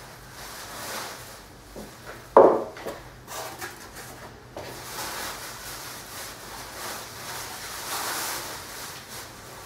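A plastic dustpan scraping and knocking on a wooden floor as spilled white powder is scooped up, with one sharp knock about two seconds in, then a longer stretch of scraping and rustling as it is tipped into a plastic bin bag.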